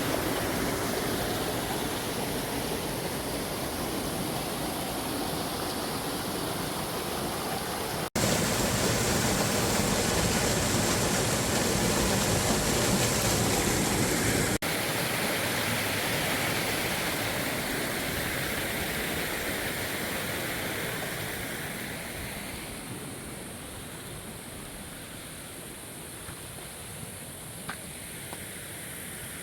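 Creek water rushing steadily. The sound jumps abruptly twice where the footage is cut, and grows quieter over the last several seconds.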